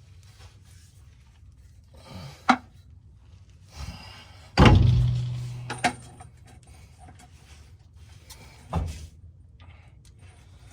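Metal knocks and clanks as a 1993 Chevy 4x4 pickup's driveshaft is worked free and handled. The loudest, about halfway, is a heavy clank followed by a low ringing hum that fades over a second or two. A few lighter knocks come before and after it.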